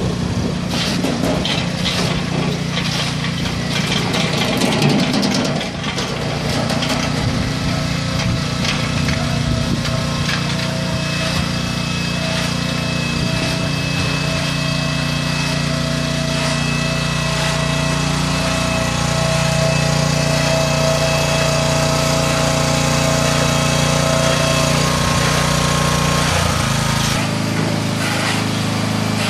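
Grillo G85d two-wheel tractor's engine running steadily under load while its front angle blade pushes and spreads compost. The engine note shifts about three-quarters of the way through.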